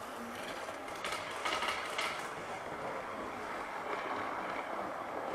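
Model train running along its track close by: a steady rattling hum of its electric motor and wheels, with a few sharp clicks about one to two seconds in.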